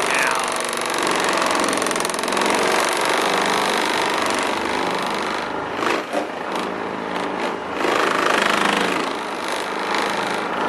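Random orbital polisher running on a truck's painted hood, a steady motor whir with a couple of brief dips past the middle, polishing out swirls after overspray removal.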